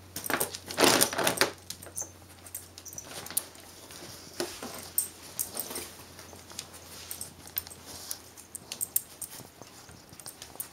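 A plastic pet-food bag crinkling and rustling as a dog noses into it, loudest in the first second and a half, then scattered light clicks and softer rustles.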